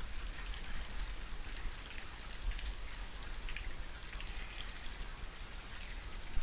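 Steady rain falling during a thunderstorm, an even hiss with fine flecks of drops and a steady low rumble underneath.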